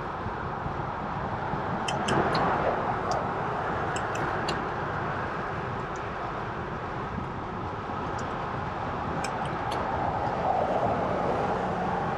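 Steady road and wind noise from a bicycle on the move, with motor vehicles passing in the lane alongside: it swells about two seconds in and again near the end. A few sharp clicks are scattered through it.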